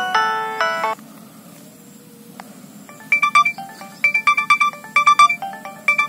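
Nokia 6220 polyphonic ringtones playing from the phone's own speaker. One tone's chordal melody is cut off about a second in. After a quiet gap with a single click, the next tone starts about three seconds in: a quick repeating pattern of high synth notes.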